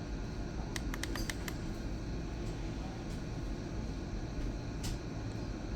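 Steady low background hum, with a quick cluster of small clicks about a second in and a single click near the end.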